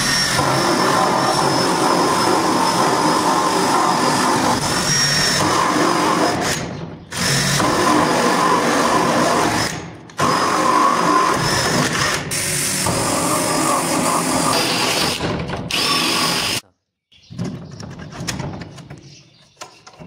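Cordless drill spinning a hole saw through a wooden door, boring the holes for a lock's handle spindle and cylinder. It runs in three long stretches with short breaks and stops suddenly near the end, leaving a few quieter knocks and clicks of handling.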